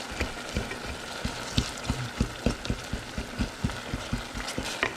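A utensil stirring and knocking in a pot of melting beef suet and water, several irregular knocks a second, as the last big chunks are broken up, over a faint sizzle.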